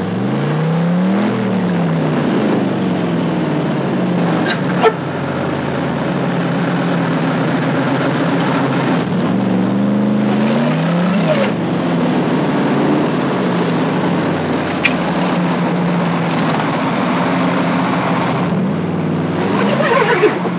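A car engine under load as the car climbs a steep muddy trials hill, the revs rising and falling several times as the driver works the throttle. Two short sharp knocks stand out, a few seconds in and past the middle.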